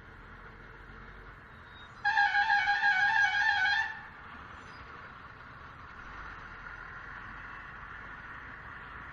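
A vehicle horn blares once for about two seconds, a loud wavering blast a couple of seconds in, over faint traffic noise.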